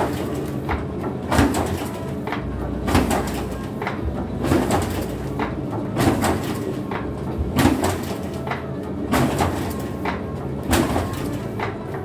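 Sheet-covering (laminating) roller machine running with a steady low hum, with a sharp clack about every half second to second as sheets are hand-fed through it.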